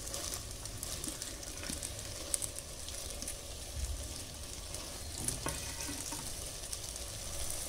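Onions, potatoes and tomato sizzling steadily in an earthenware pot on a gas stove, with a few soft clicks as peeled field beans are tipped in off a plate.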